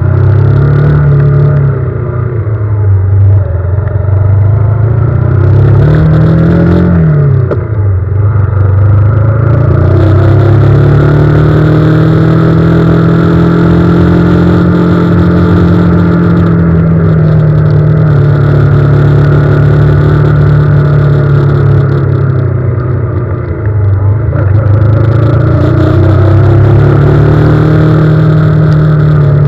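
Engine of the vehicle being driven, running loud and close, its pitch rising and falling with the throttle: a quick rise and drop about six to seven seconds in, then a long steady pull.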